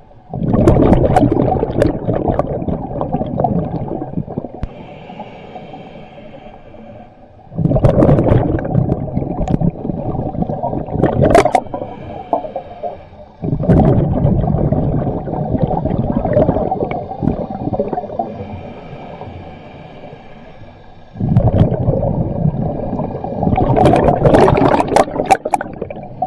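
Scuba diver's exhaled bubbles gurgling and rushing out of the regulator, heard underwater in four bursts about six to seven seconds apart, with quieter breaths between.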